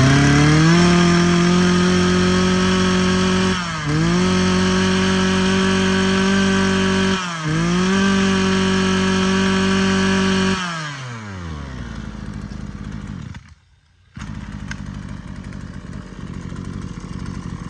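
Mitsubishi TBE 27cc two-stroke brush cutter engine held at high revs, with the throttle let off and reopened twice, then released about ten seconds in so it drops to a steady, smooth idle. The sound cuts out for about half a second shortly after.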